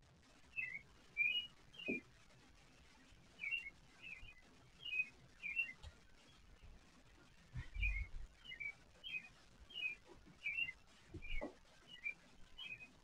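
Faint bird chirping: short high chirps, often in pairs, repeating about every half second to a second. A few soft low thumps come in between.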